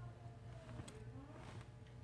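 A couple of light clicks from small tools working on a phone's internal parts, over a faint steady low hum.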